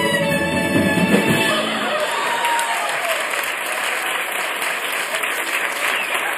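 A live band and cast singing finish a musical number about a second and a half in, and theatre audience applause follows, with a few whoops over the clapping.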